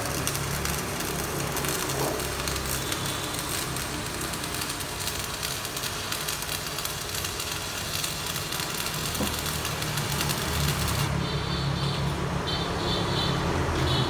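Electric arc welding crackling and hissing steadily, stopping about eleven seconds in, over a low steady hum.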